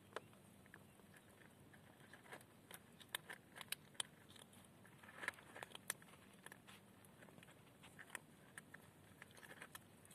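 Faint, irregular clicks and crackles from kittens in a cardboard-lined plastic crate, with a busier cluster around three to six seconds in.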